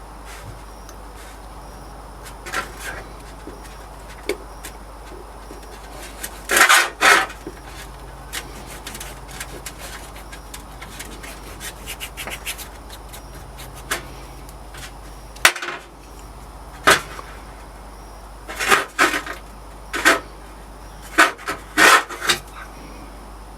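Irregular knocks, taps and short scrapes of hand work with tools and objects on a hard surface, over a steady low hum. The loudest knocks come in clusters about seven seconds in and again near the end.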